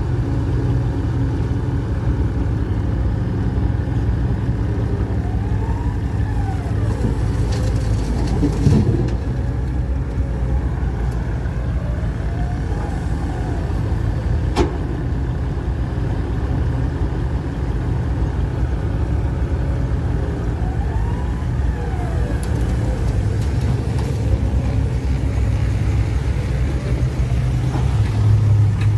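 Diesel engines of a Komatsu HB205-1 hybrid excavator and a dump truck running steadily while the excavator digs and loads, with several rising-and-falling whines and two sharp knocks. Near the end a nearby truck engine grows louder.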